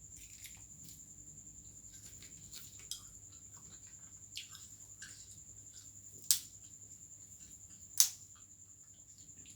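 Close-miked eating sounds: chewing pigeon and chicken heads, with a few sharp clicks. The two loudest come about six and eight seconds in.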